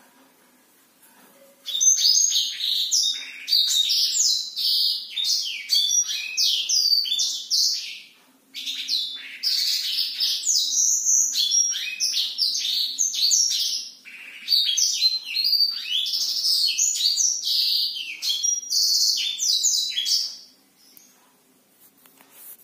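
Black-throated canary (blackthroat) singing a long, fast run of varied high chirps and trills. The song starts about two seconds in, breaks off briefly about a third of the way through, and stops a couple of seconds before the end.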